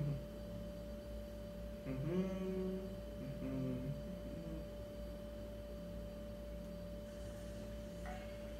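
A steady faint tone runs in the background. About two seconds in, and again a second or so later, there is a short muffled hum from a mouth held full of water.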